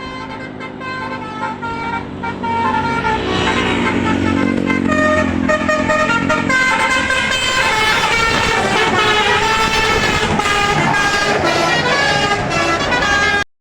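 A bus's basuri telolet horn, a multi-tone musical air horn, plays a fast run of changing notes. The bus engine rises in pitch underneath in the first half. The sound cuts off suddenly near the end.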